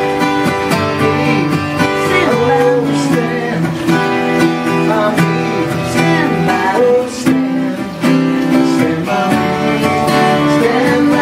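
Two acoustic guitars strumming and picking a steady accompaniment, with a voice singing over them.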